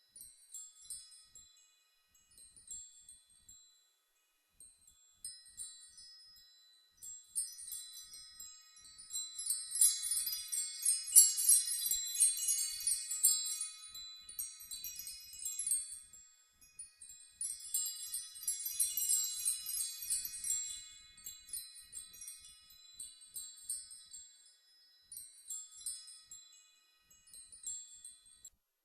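High-pitched metal chimes tinkling in irregular clusters of ringing notes, swelling twice into dense, louder jangles and thinning to sparse single tinkles in between.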